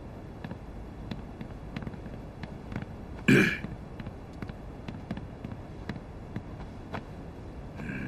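Faint boot footsteps and small knocks on a wooden floor as several men walk over and sit down, with one short, loud throaty sound like a cough or grunt about three seconds in.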